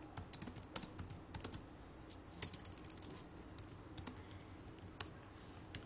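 Typing on a computer keyboard: a run of key clicks at an uneven pace, with short pauses between bursts of keystrokes.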